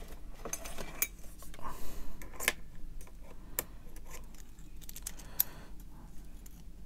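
Scattered small clicks and taps of plastic and metal model-kit fork parts being handled and fitted together by hand.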